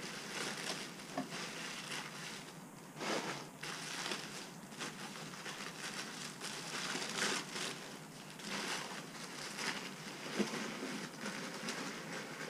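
Plastic packaging crinkling and rustling as a kit parts package is handled and opened, in irregular crackly rustles.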